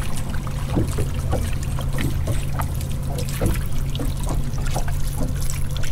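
Mercury outboard motor running steadily at trolling speed, a low hum, with water lapping and trickling against the boat's hull in small irregular splashes.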